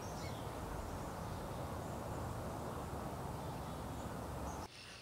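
Steady low outdoor background noise, with a faint bird chirp near the start. It cuts off suddenly just before the end.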